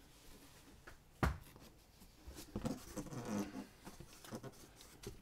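Hardcover graphic novels being handled and moved about: a single sharp knock about a second in as a book is set down, then rustling and shuffling as the next one is pulled out.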